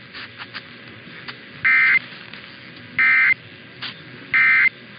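Emergency Alert System end-of-message signal: three short identical bursts of warbling SAME data tones, each about a third of a second long and about a second apart, marking the end of the alert. Faint radio hiss runs underneath.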